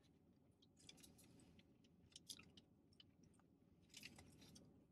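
Faint close-up chewing and crunching of fried chicken, in short bursts of crackly clicks about one, two and four seconds in.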